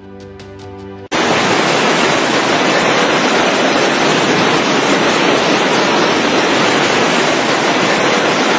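Loud, steady rush of water, heard after a short stretch of music that cuts off about a second in.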